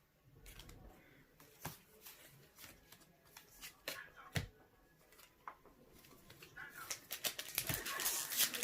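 Pokémon trading cards being handled and flipped through, with scattered soft clicks and slides. From about seven seconds in comes dense crinkling from a foil booster pack wrapper being opened.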